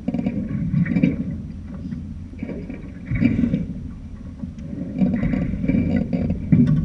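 Rushing wind and water noise on a sailing boat under way, swelling and easing in surges every second or two.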